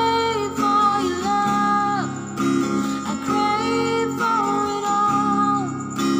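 Music: a slow song with acoustic guitar accompaniment and a held melody line that glides smoothly from note to note.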